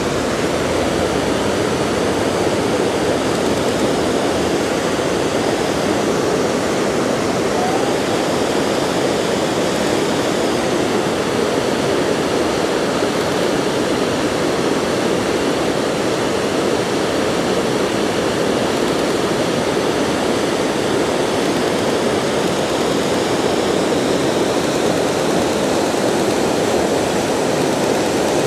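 Whitewater rapid on a mountain river, rushing steadily over and around boulders in a dense, even wash of water noise. The rapid is a class IV.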